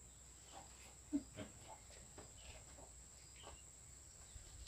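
Quiet background with a steady high-pitched insect drone. A few faint short knocks and rustles come through, the clearest about a second in.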